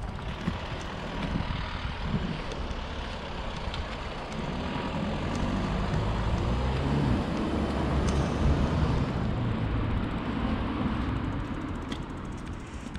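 A motor vehicle going by on the street, its noise building to a peak about two-thirds of the way through and fading near the end.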